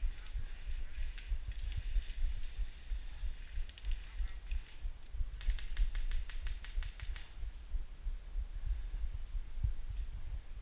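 Airsoft guns firing in bursts of rapid sharp clicks, the longest run lasting about two seconds in the middle, over low thumps of movement close to the camera.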